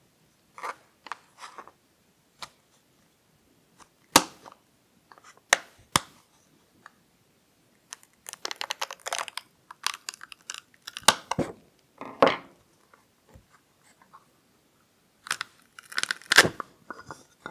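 Cured silicone tire being pried and peeled out of a 3D-printed plastic mold with a screwdriver, with no mold release used. Several sharp clicks and snaps about four to six seconds in, then irregular bursts of rapid crackling and tearing as the silicone breaks free of the mold walls, loudest near the end. It takes a fair bit of force.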